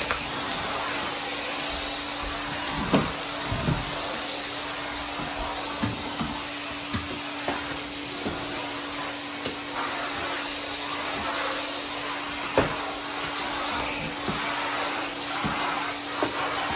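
Vacuum cleaner running steadily with a constant motor hum, with scattered short knocks and clatters as it works.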